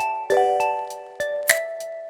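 Background pop music in an instrumental passage: struck, bell-like chiming notes that ring and fade, over sharp percussive hits.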